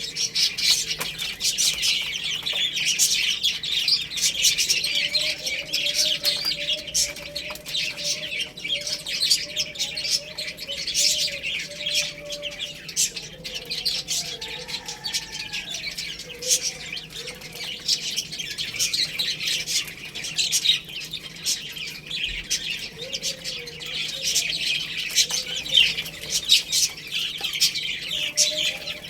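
A group of baby chicks peeping continuously, a dense, overlapping stream of short high chirps. A lower, drawn-out call sounds underneath for several seconds in the first half, with a few shorter low calls later.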